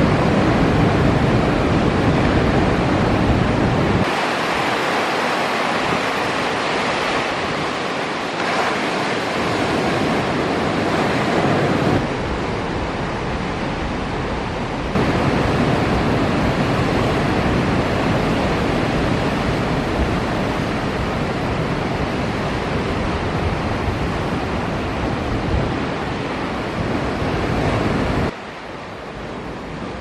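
Ocean surf: waves breaking and washing as a steady rush of water, with wind buffeting the microphone. The noise changes abruptly a few times and drops quieter near the end.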